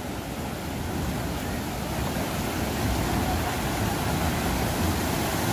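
Ocean surf washing in over the shallows: a steady rushing hiss of breaking waves and foaming water that builds slightly in loudness, with a low rumble underneath.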